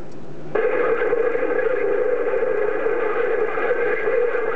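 CB radio receiver on the 27 MHz band giving out noisy static with a steady droning tone: a weak, long-distance skip signal coming in. A short plain hiss comes first, and the static and tone start about half a second in.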